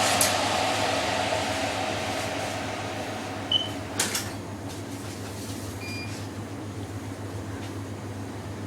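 Steady hum of shop equipment. A hiss fades away over the first few seconds. A short electronic beep comes about three and a half seconds in, followed by a sharp knock, and another short beep comes about six seconds in.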